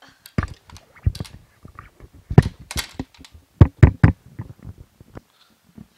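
Microphone handling noise: a series of irregular knocks and thumps as the microphone is gripped and shifted on its stand, the loudest bunched in the middle of the stretch.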